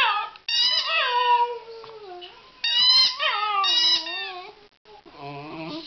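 A Border Terrier chewing a squeaky rubber toy, setting off three bursts of rapid, repeated high squeaks. Alongside them the dog howls along in long, wavering notes that slide down in pitch.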